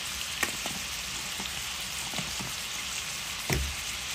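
Chicken pieces frying in oil in an electric skillet: a steady sizzle with scattered pops of spattering fat, the loudest a little past three and a half seconds in.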